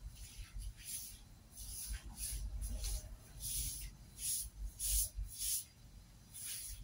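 A stiff-bristled broom swishing water across a wet tiled floor in quick, repeated strokes, about ten of them, one to two a second.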